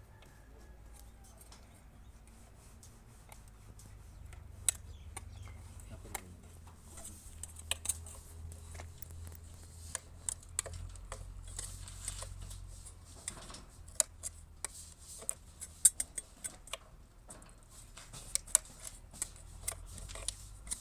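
Scattered sharp clicks and light taps, irregular and growing more frequent after the first few seconds, over a steady low hum.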